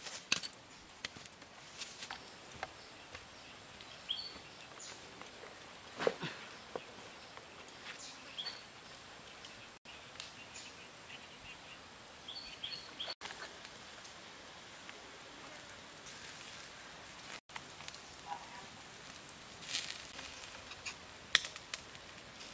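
Outdoor forest ambience: a steady hiss, scattered clicks and knocks, and a few short, high bird chirps.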